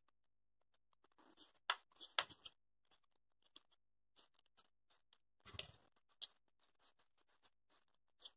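Faint scratching and rubbing of a small piece of EVA foam worked between the fingers around a wire, with small clicks; the loudest bits come about two seconds in and again a little past the middle.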